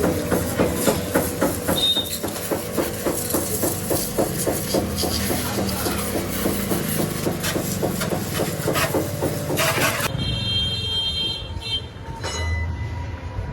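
A machine running with a fast, even chugging rhythm and a hiss, which stops abruptly about ten seconds in; a few short electronic tones follow.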